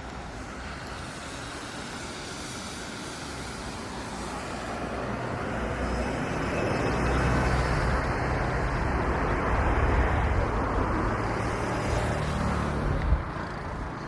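Road traffic: a motor vehicle passes close by, its engine hum and tyre noise building over several seconds, loudest past the middle and easing off near the end.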